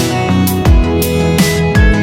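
Background electronic music with a steady beat: deep kick drums that drop in pitch, bright percussion hits and sustained chords.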